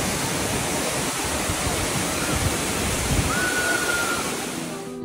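Waterfall plunging into a pool: a steady, loud rush of falling water that eases off slightly near the end.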